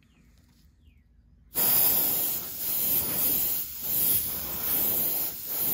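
Airbrush spraying paint: a loud, even hiss of air that starts suddenly about a second and a half in and dips briefly several times.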